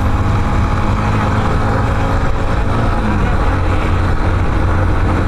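Yamaha Factor 150 motorcycle's single-cylinder four-stroke engine running steadily under way, a low hum beneath steady wind rush.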